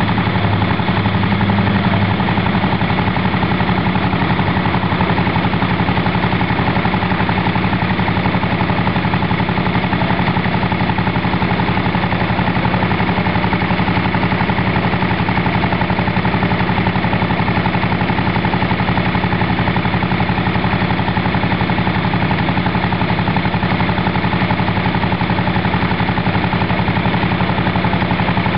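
Delco-Light 750 generating plant's single-cylinder engine running steadily and smoothly while it powers the lights, exhausting through a homemade muffler made from a Mack truck oil filter.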